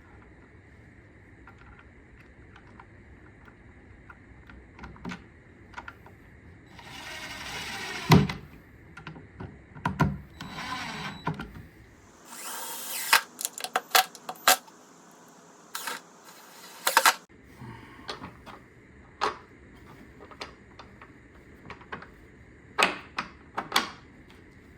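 Cordless drill driving screws back into holes made earlier, in several short runs of a second or two each, with sharp clicks and knocks of handling between them.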